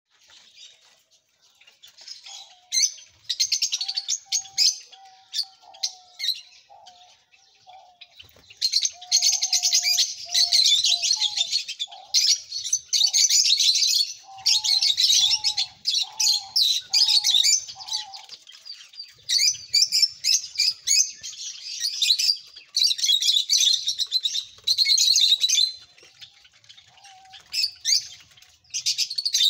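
Lovebirds chattering: shrill, rapid twittering in loud bursts with short pauses. A lower, clearer note is repeated under it through the first half, including a run of six short notes.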